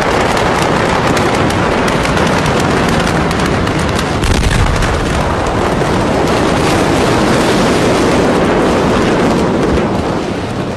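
Rapid crackling pops of fireworks burning in the port warehouse fire. About four seconds in, the shockwave of the huge ammonium nitrate explosion hits with a deep boom, followed by a long loud rushing roar that eases near the end.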